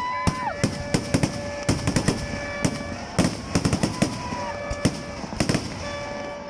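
Aerial festival fireworks going off: a rapid, irregular run of sharp bangs and crackling bursts. A whistle glides up, holds and falls right at the start, and a shorter one follows about four seconds in.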